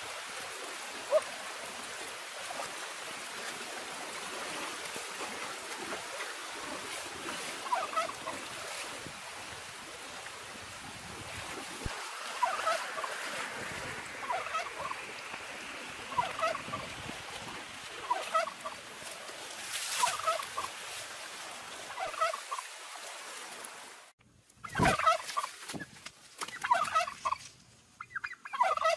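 Turkey calling in short, repeated clucks over a steady background hiss. The calls come more and more often, and after a sudden break about four-fifths of the way through they are louder.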